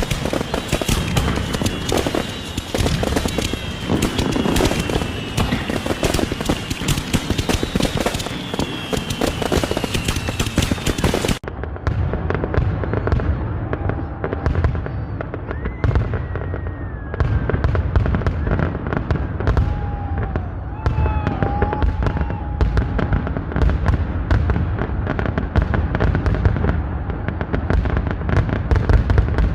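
Fireworks going off in rapid succession, a dense crackle of pops and bangs. In the first part, slowly falling whistling tones sound over the crackle. After a cut about eleven seconds in, the crackle goes on over deeper booms.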